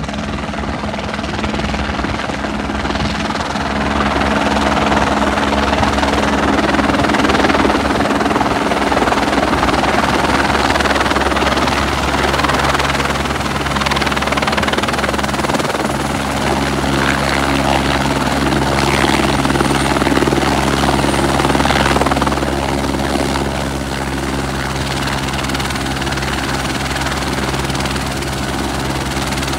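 Light helicopter's rotor and engine noise as it comes in, hovers down and lands on a helipad, with a steady low drone under rushing rotor noise. It grows louder as the helicopter comes close and eases off about three quarters of the way through, once it has settled on the pad with its rotors still turning.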